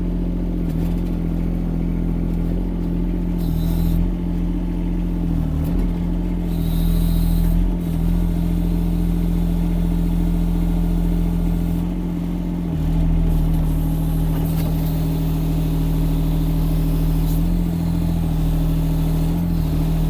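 Yanmar diesel engine of a Kymron XH20D mini excavator running steadily under hydraulic load as the machine tries to lift a heavy log. Two short bursts of high hissing come a few seconds in.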